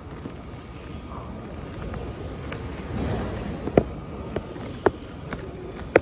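Foil-lined insulated cooler bag being handled: light rustling and several sharp clicks, the loudest about halfway through and at the very end, over steady background noise.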